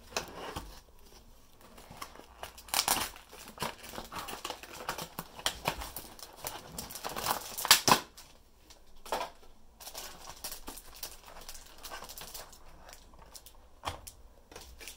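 Clear plastic packaging of a boxed model railway coach crinkling and clicking as the coach is worked out of its plastic sleeve and moulded tray, in irregular rustles and snaps, the loudest just before eight seconds in. A light knock near the end as the coach is set down on the wooden table.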